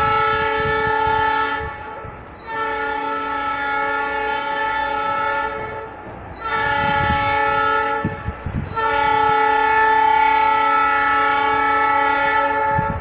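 Train horn sounding four blasts, the third shorter than the others, each a chord of several steady tones.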